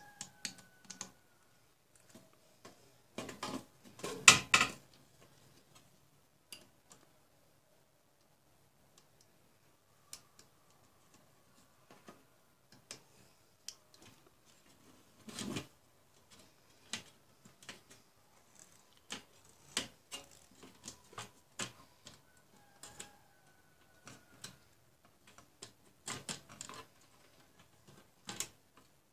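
Scattered clicks, taps and light knocks from a monitor's circuit board and sheet-metal frame being handled and fitted into place, with a louder clatter about four seconds in.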